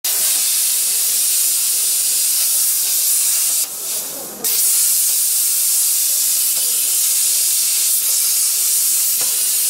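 Hand-held cutting torch hissing steadily as it cuts through a steel plate, throwing sparks. The hiss stops briefly near the middle and starts again.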